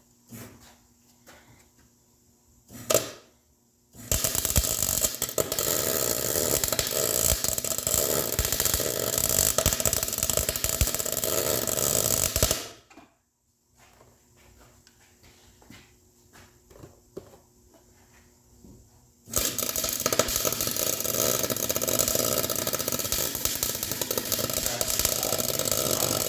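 Welder laying a bead of weld on a tractor clutch bearing race so the race can be chiseled out. It runs in two long, loud, steady crackling passes of about eight and seven seconds, with a short knock before the first pass.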